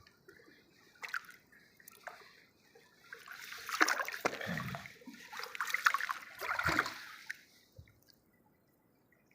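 Water splashing and sloshing in irregular bursts, loudest from about three seconds in until it dies away near the end.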